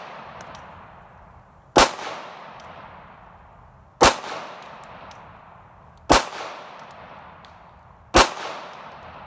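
Custom Glock 19 9mm pistol fired four times in slow aimed shots about two seconds apart, each sharp report trailing off in a long echo.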